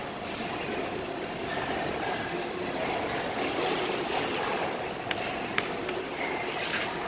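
Steady running noise of a stretch hood pallet-packaging line and its roller conveyors, with a few sharp clicks and short hisses about two-thirds of the way through.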